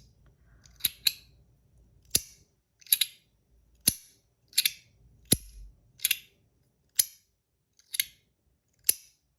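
Titanium magnetic slider fidget coin being slid back and forth along its four-way track, its halves snapping onto the magnets with a sharp click about once a second.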